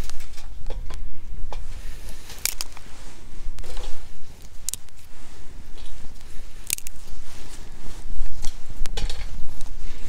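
Small dry driftwood twigs snapped by hand, sharp snaps every couple of seconds, about five in all, over a steady low rumble of wind on the microphone.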